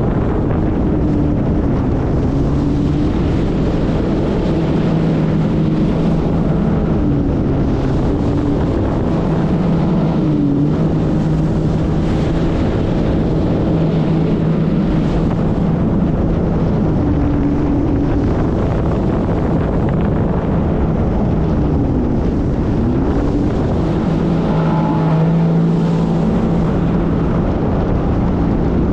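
Jet ski engine running under way, with wind buffeting the microphone; its pitch dips and climbs back a few times as the throttle is eased and reopened.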